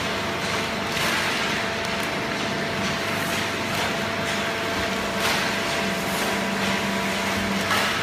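Fully automatic horizontal waste-paper baling line running: a steady mechanical hum with a broad hiss from the machinery and its chain conveyor. A few brief clatters come through, about a second in, after five seconds and near the end.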